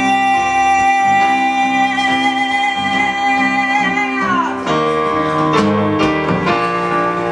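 Live band music: a long held sung note with a slight waver slides down and falls away about four seconds in, over guitar and keyboard accompaniment, and the accompaniment then plays on with new chords.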